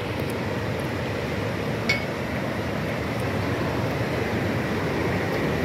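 Ewaso Nyiro River in flood: a steady rush of muddy, turbulent flood water. A single short click sounds about two seconds in.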